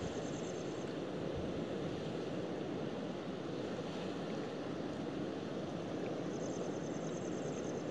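Steady wash of sea surf on a rocky shore, mixed with wind. A faint, high, rapid pulsing sound comes in about six seconds in.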